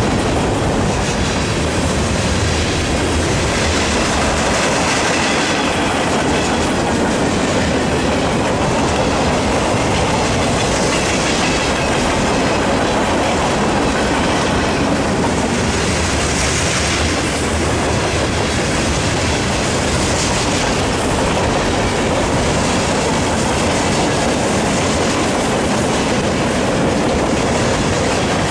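Freight train of boxcars, covered hoppers and gondolas rolling past close by: loud, steady noise of steel wheels on the rails and car bodies passing.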